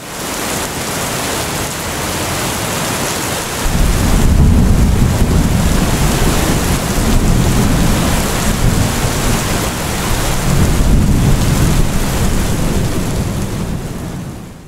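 Thunderstorm: steady heavy rain, with deep rolling thunder rumbling in about four seconds in and fading away near the end.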